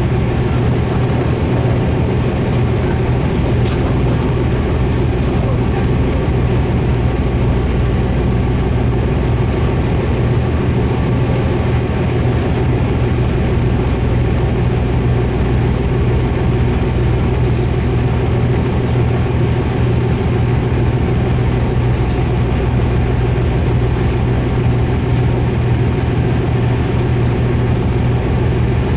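Diesel railcar running steadily, its engine giving a constant low hum over the rumble of the train on the rails.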